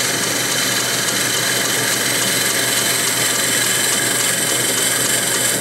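South Bend 10-inch Heavy lathe running with its tool taking a taper cut, fed by the compound rest: a steady, even machining noise with a high hiss from the cut.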